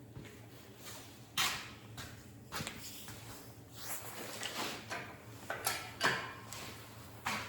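Irregular knocks, clatters and scrapes of metal parts being handled during an engine install, one of them ringing briefly.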